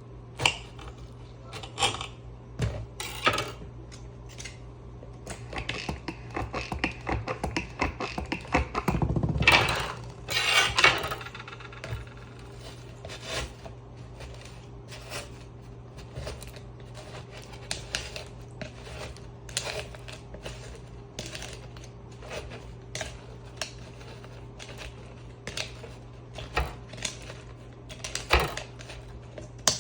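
Kitchen preparation sounds: irregular clicks and knocks of a knife and utensils on a board and dishes, with a busier stretch of handling and clatter about a third of the way in, over a steady low hum.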